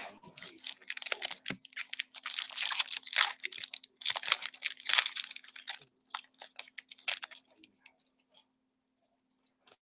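Foil wrapper of a 2014-15 SP Authentic hockey card pack being torn open and crinkled in the hands, a dense crackling for about six seconds, then a few light ticks as the cards are handled.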